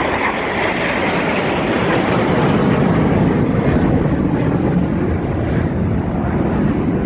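Jet aircraft flying past low and loud in an airshow display, a roar whose high hiss fades after about three seconds, leaving a deep rumble as it moves away.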